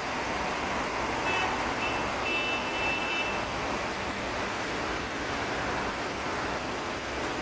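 Steady road traffic noise: vehicles running past, with a few short high-pitched beeps between one and three seconds in.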